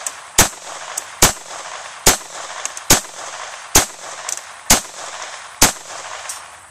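Unsuppressed Walther pistol fired seven times in steady slow fire, a shot a little under every second, being test-fired with bulk pack ammo. Fainter clicks fall between some of the shots.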